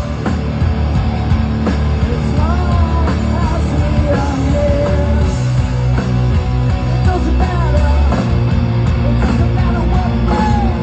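Post-hardcore rock band playing live and loud: guitars, bass and drums, with a sung vocal line over them.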